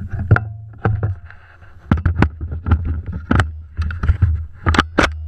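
Irregular sharp knocks and clatters, about a dozen, over a steady low rumble on the microphone. The loudest knock comes about a third of a second in.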